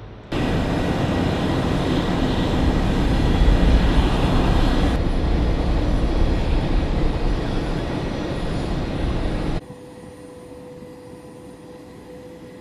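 Loud, steady aircraft engine noise on an airfield, a dense rush over a deep rumble. It cuts in sharply at the start and drops away abruptly about nine and a half seconds in, leaving a quieter steady hum with a thin whine.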